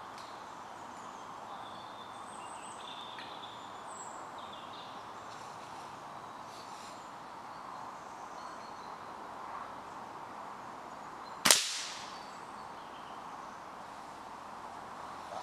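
One sharp crack about eleven and a half seconds in, with a short tail: an air-rifle shot setting off a reactive target, which bursts into smoke.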